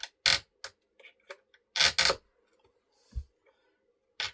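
A metal scraping tool scratching a marking line onto a chainsaw felling dog: a few short, sharp scrapes with light clicks between them, and a dull low knock about three seconds in.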